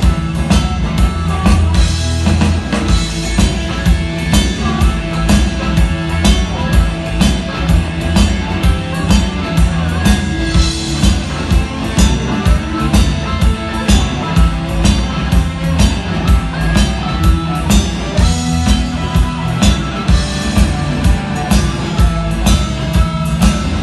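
Live blues-rock band playing an instrumental passage without vocals: electric guitar over a drum kit keeping a steady, driving beat.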